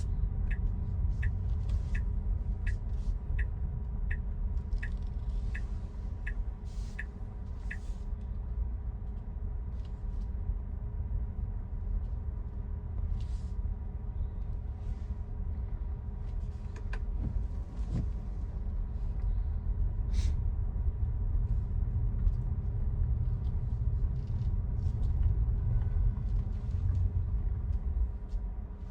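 Tesla cabin while driving: steady low road and tyre rumble. For the first eight seconds it carries a regular ticking, about one tick every 0.7 s.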